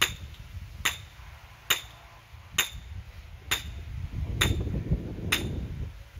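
Hammer striking metal: seven even blows about a second apart, each with a short bright ring, typical of driving a metal stake into the ground.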